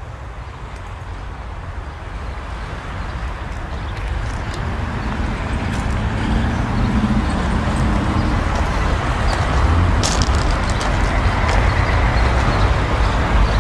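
Steady outdoor noise: a low rumble with a broad hiss that grows gradually louder, and a few sharp clicks about ten seconds in.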